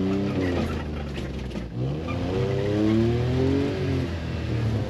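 Suzuki Carry kei truck's carbureted 660cc engine revving up and down in low gear off-road, heard from inside the cab. The revs drop briefly a little under two seconds in, climb again, then ease off near the end.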